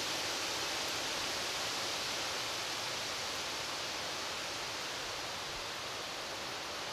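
Steady, even hiss of wind rustling through leaves and grass.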